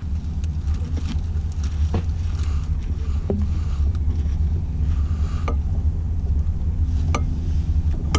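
A steady low engine rumble that starts abruptly, with a few light clicks over it.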